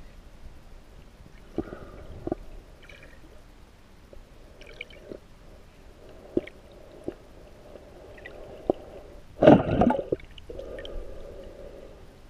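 Water heard through a camera held just under the surface while snorkeling: muffled sloshing with scattered sharp clicks and knocks, and a louder burst of water noise lasting under a second about nine and a half seconds in.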